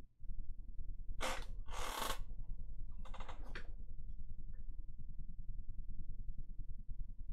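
Steady low rumble of background noise, with three short hissy bursts between about one and four seconds in.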